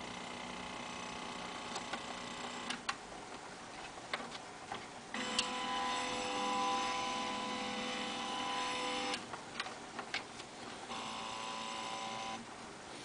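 Small stepper motor turning a magnetic loop antenna's air variable capacitor, running with a steady mechanical whine in three stretches: one stops a few seconds in, the loudest runs for about four seconds from around the middle, and a shorter one comes near the end. Light clicks sound in the pauses between runs.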